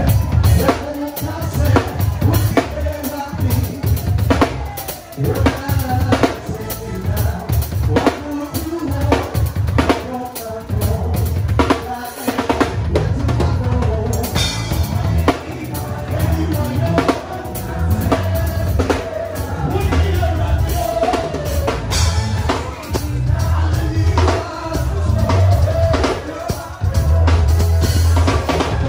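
Band music driven by a drum kit, with a steady beat of kick drum and snare over a strong bass line.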